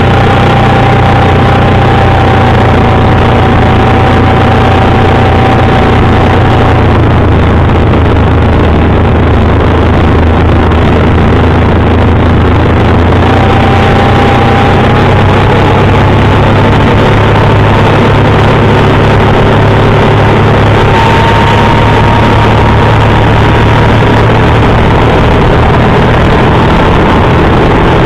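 Outboard motor running under way, heard close at the lower unit under a loud, steady rush of spraying water. A faint whine drops slightly, fades out for a few seconds, then returns and rises slowly.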